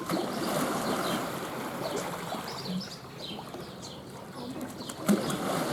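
Water splashing and rushing steadily, with short high bird chirps over it and a sharper splash about five seconds in.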